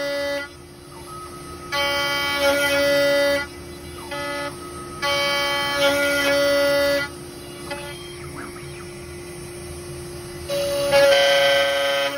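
CNC router spindle running with a steady whine while its bit cuts a deep mortise in a wooden bed leg. A louder, horn-like whine comes and goes in passes of about one to two seconds as the bit bites into the wood, with quieter gaps between, the longest gap coming after the middle.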